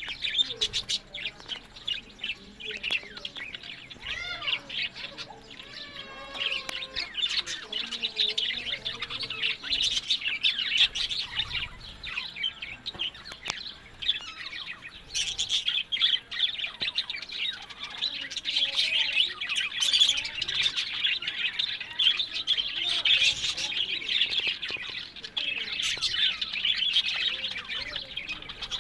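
Budgerigars chattering: a continuous run of rapid chirps, warbles and twitters.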